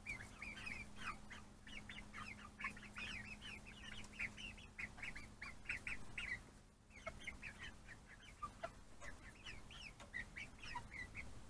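Young American Bresse chickens, about two months old, peeping and cheeping with many short high calls, several a second, faint and almost continuous.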